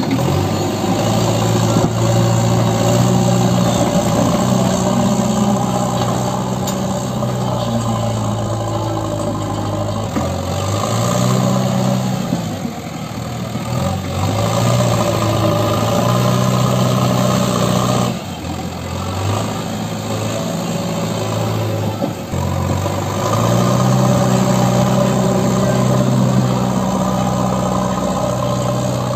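JCB 3DX backhoe loader's diesel engine working under load as the front loader bucket pushes earth. The engine revs up and drops back several times, notably about ten, thirteen, eighteen and twenty-two seconds in.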